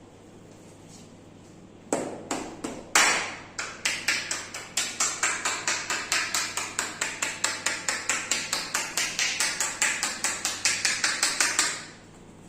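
Percussive massage: hands striking the body in quick, even slaps. A few slower, heavier strikes come about two seconds in, then a steady rhythm of about four to five a second that stops abruptly near the end.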